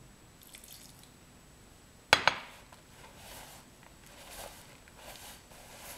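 A ceramic mug is set down on a countertop with a sharp double clack about two seconds in, followed by soft, intermittent squishing and scuffing as hands knead sticky oat dough in a plastic bowl.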